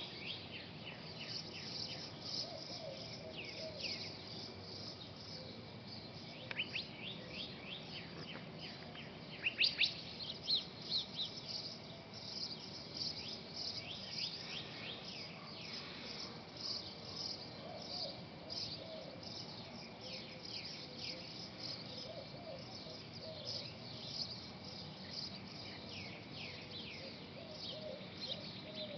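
Small birds chirping and calling outdoors: many quick, high notes sweeping downward, some in fast runs, loudest about ten seconds in, with fainter lower warbling notes now and then over a steady outdoor hiss.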